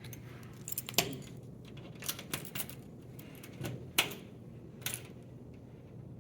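About seven sharp, irregular clicks and clacks, like small metal parts or keys being handled, over a steady low hum; the two loudest come about a second and about four seconds in.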